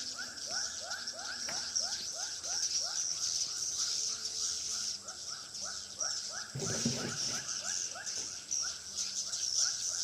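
Edible-nest swiftlets twittering inside a swiftlet house with the lure speakers switched off, so this is the birds' own calling. A dense high twitter runs alongside a steady train of short rising chirps, about four a second, with a brief low rumble just past the middle.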